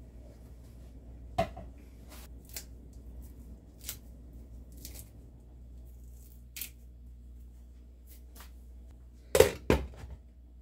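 Celery stalks being snapped and torn by hand, a scatter of sharp snaps over a low steady hum. Near the end a glass pot lid is set on the stainless steel pot with two loud clanks in quick succession.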